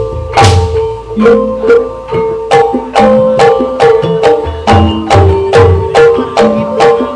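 Live Javanese gamelan accompaniment for ebeg: struck tuned percussion ringing out in a steady, repeating pattern over low hand-drum (kendang) beats, about two to three strokes a second.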